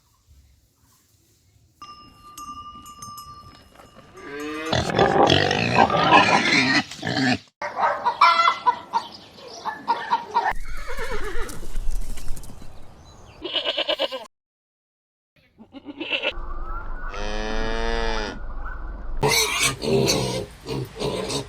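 Goats bleating: a series of loud, wavering calls in several short clips joined by abrupt cuts, with a brief silent gap before the last calls.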